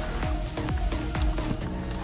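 Background electronic music with a steady beat: deep kick drums that drop in pitch, about two a second, under held notes.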